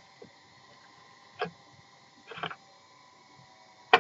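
Small strip of fine sandpaper rubbed along the lacquered chip repair on a broken piece's edge in kintsugi work: three short strokes, the one right at the end the sharpest and loudest.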